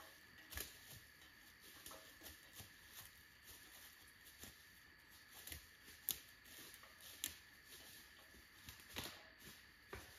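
Faint footsteps crunching and rustling through dry leaves and brush on the forest floor, soft irregular steps roughly twice a second.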